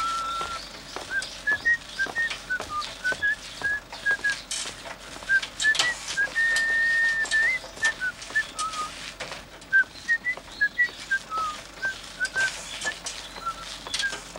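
Someone whistling a jaunty tune, short notes and brief glides with a couple of longer held notes, over scattered light clicks and taps.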